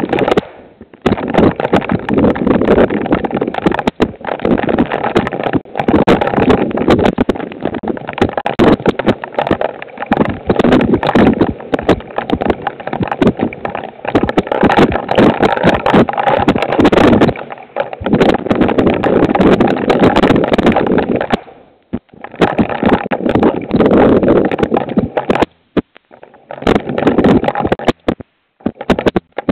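Heavy, wind-driven rain pelting a Ring security camera, picked up by its own microphone as loud, dense crackling full of sharp drop impacts. The sound drops out briefly a few times, about a second in and twice near the end.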